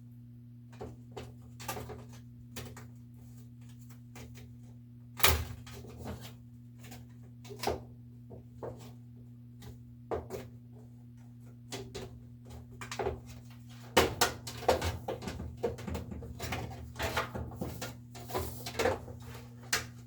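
Irregular clicks, knocks and clatter of parts and tools being handled on a top-load washer, with one loud knock about five seconds in and a busy run of clatter near the end, over a steady low hum.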